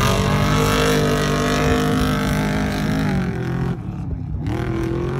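Off-road race vehicle engines running loudly, the engine note holding steady and then falling away about three seconds in. Near four seconds the sound abruptly thins, and then the engine note climbs again.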